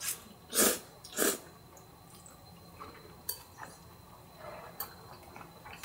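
Cold somen noodles being slurped from bowls with chopsticks: three short slurps in the first second and a half. Then a few light clicks of chopsticks against bowls.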